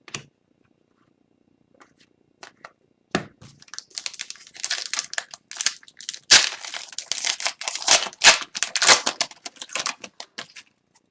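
Upper Deck hockey card pack's foil wrapper being torn open and crinkled: a crackling run of tearing and rustling that starts about three seconds in, after a few faint clicks.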